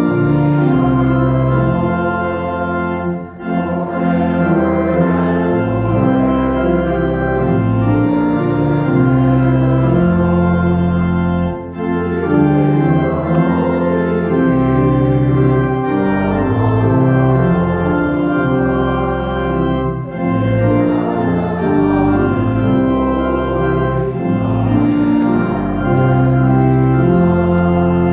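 Church organ playing a hymn tune in held chords, phrase by phrase, with short breaks between the phrases.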